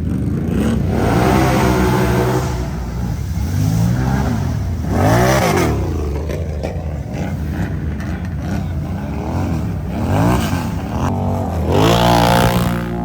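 Can-Am Outlander ATV's V-twin engine revving up and down again and again, its pitch climbing and falling several times, with the highest revs about five seconds in and again near the end.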